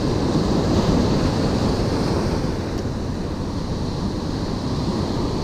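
Ocean surf breaking and washing up the sand in a steady rush, with wind buffeting the microphone.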